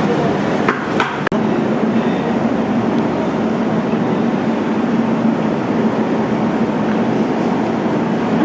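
Factory machinery running steadily with a constant hum, and a few sharp clicks or knocks about a second in.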